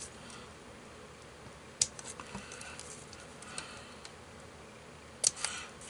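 Scissors snipping paper card: a few faint, sharp snips, the clearest about two seconds in and again near the end.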